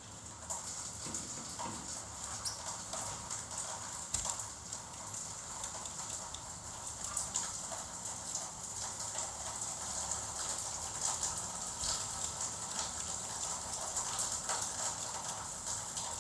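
Gouldian finches moving about, making many small irregular taps and clicks.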